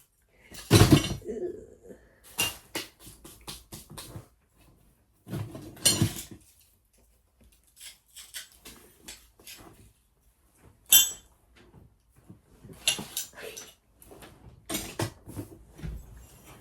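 Tools and odds and ends being rummaged out of a tool bag and set down: irregular clinks, knocks and rattles of small metal and hard objects with some rustling in between.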